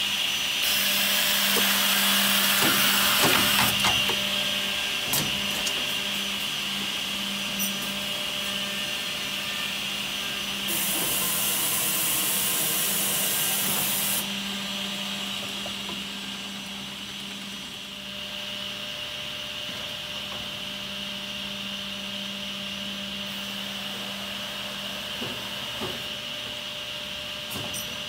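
SCMI Olimpic K 800 edgebander running with a steady whine and hiss while it edge-bands a panel, with two stretches of louder hissing, each about three seconds long, near the start and around the middle.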